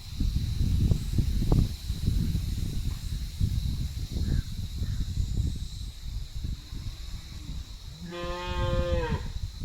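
Wind buffeting the microphone gives a steady low rumble. A cow moos once, a call of about a second, near the end. Faint crow caws come and go, over a steady high insect-like whine.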